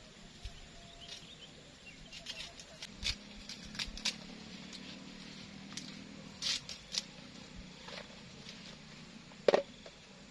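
Scattered light clicks and taps over a quiet background, with one sharper knock near the end.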